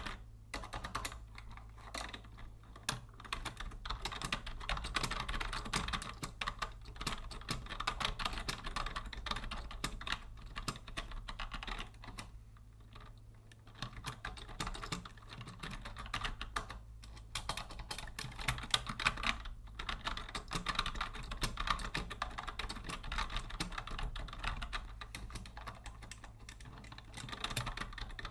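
Fast, continuous typing on a vintage Logitech Deluxe 104 wired keyboard, a dense run of key clicks with a few brief pauses, one of about a second near the middle. A low steady hum sits underneath.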